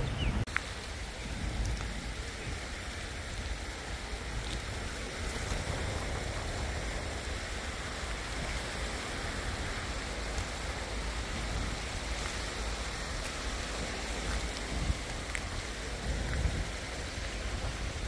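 Steady hiss of small waves washing over a pebbly, rocky shoreline, with a low wind rumble on the microphone.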